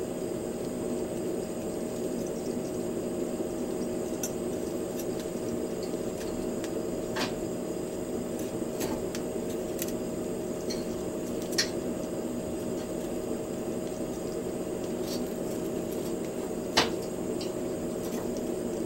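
A steady low hum runs under a scattering of sharp clicks: chopsticks tapping the wire grill and mochi as the pieces are turned. The loudest clicks come about halfway through and near the end.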